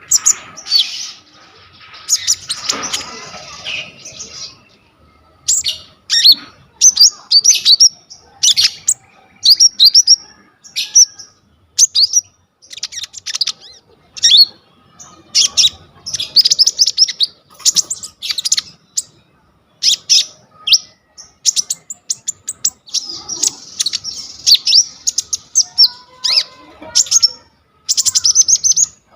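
Konin songbird singing vigorously ('gacor') in quick runs of sharp, high chirps and trills, its song full of fill-in phrases ('isian') taken from other birds.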